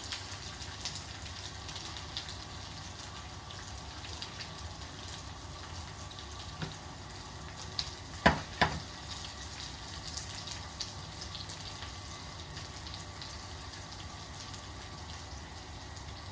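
Parboiled potato pieces shallow-frying in oil in a pan, a steady sizzle with small crackles. About halfway through there are two sharp knocks close together.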